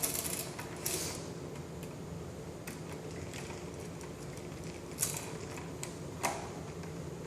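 Light scattered clicks and taps, about five in all, from handling a wall light switch and its wiring while mounting it, over a steady low hum.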